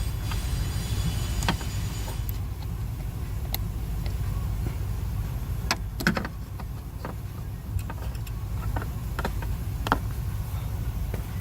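Scattered clicks and knocks of hands working behind the dashboard, plugging in the new blend door actuator's electrical connector, over a steady low rumble.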